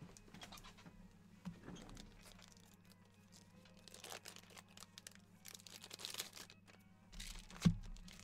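Foil trading-card pack wrappers crinkling and tearing and cards being handled, in an irregular run of crackles, with one sharp knock near the end. A steady low hum sits underneath.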